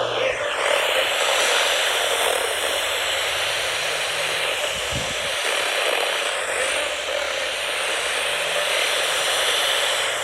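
Steady hiss of radio static.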